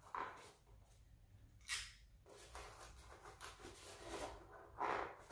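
Faint handling sounds of 8 mm engine-case bolts being pushed into a styrofoam block, with a short sharp scrape about two seconds in.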